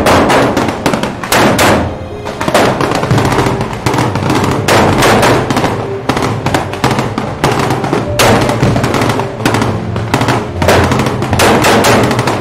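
Dense, irregular gunfire, like a battle sound effect, over background music.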